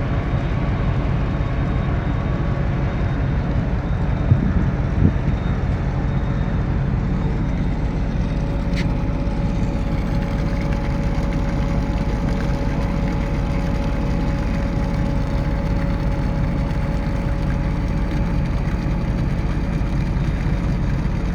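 Steady low engine rumble with faint steady tones running through it, and two brief knocks about four to five seconds in.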